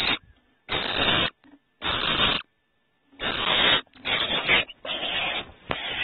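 Barn owl giving raspy hissing calls: harsh half-second bursts about once a second that run together into an almost unbroken rasp in the last two seconds.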